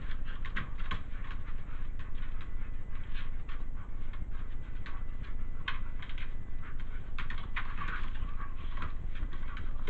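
Dogs' claws clicking and scratching on the floor in irregular taps and scrabbles as they play, over a steady low hum.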